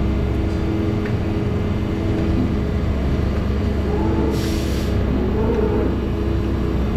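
Steady low machine hum, with a short hiss about four seconds in.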